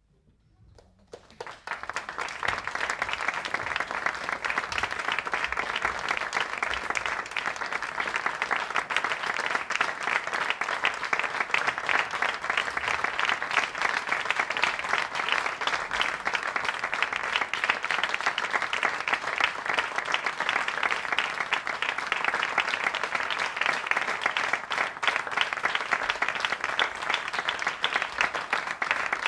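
Audience applauding: clapping breaks out about a second in, swells quickly and then holds steady.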